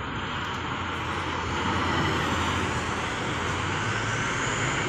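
Road traffic passing: a steady drone of engines and tyres from trucks and cars, with a truck's engine hum growing louder near the end as it approaches.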